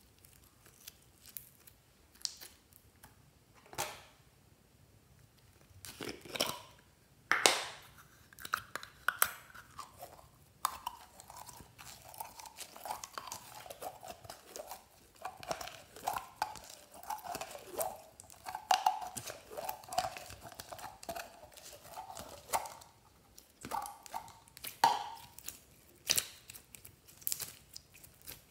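Hands squeezing and stretching slime studded with foam beads, then glossy slime: sticky crackling, popping and squelching. Sparse at first, with a few louder pops, then a denser run of squelches through the middle.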